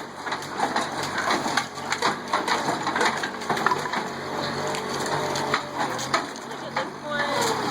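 Wooden porch framing cracking and splintering under strain, a dense crackle of small snaps and creaks.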